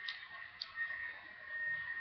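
Felt-tip marker squeaking faintly on a paper label as it writes, a thin high squeak that comes and goes.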